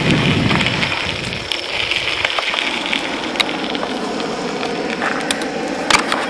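Tyres rolling over a gravel trail with wind on the microphone: a steady crunching hiss with scattered sharp clicks, and a few louder clicks near the end.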